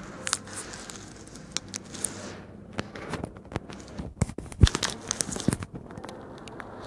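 Handling noise from a handheld phone: irregular crackles and clicks as fingers rub and tap near the microphone, with a run of sharp knocks in the middle, the loudest about two-thirds of the way through.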